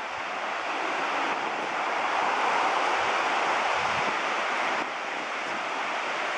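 Ocean surf washing steadily, swelling louder about two seconds in, with wind buffeting the microphone.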